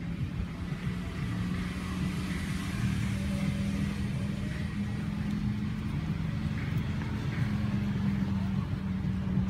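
A steady low engine hum, with outdoor background noise.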